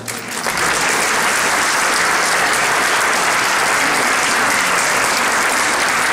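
Audience applauding, swelling in the first half second and then steady.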